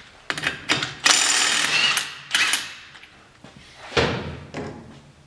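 Cordless impact wrench run in several short bursts, the longest about a second, spinning the axle nut off a Polaris Sportsman's rear hub after the cotter pin is pulled.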